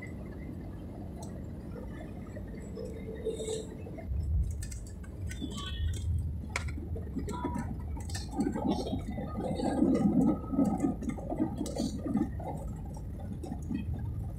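Airliner cabin noise during the landing: a steady low rumble, a bump about four seconds in, then louder rumbling with rattling and clicking of the cabin fittings from about eight to twelve seconds as the plane rolls out on the runway.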